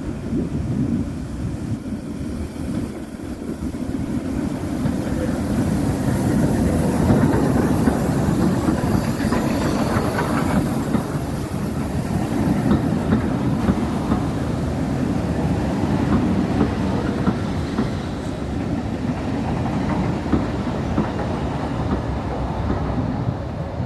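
Steam-hauled passenger train, double-headed by Taff Vale Railway No. 85 and L&YR Class 25 No. 52044, running past with a steady rumble that grows louder over the first several seconds. The coaches' wheels clickety-clack over the rail joints as they go by.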